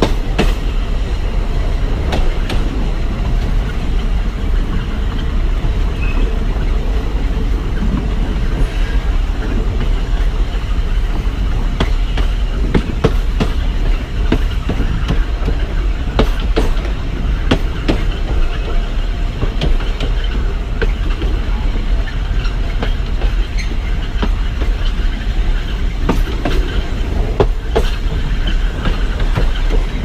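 Alishan Forest Railway narrow-gauge train, hauled by a DL-41 diesel locomotive, running along the track: a steady low rumble with irregular clicks and clacks of the wheels over the rails.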